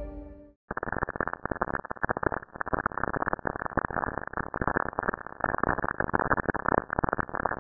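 Cassini space probe's recording of radio signals from lightning on Saturn, played as sound. It starts about a second in as a dense, irregular crackling of many pops, like popcorn.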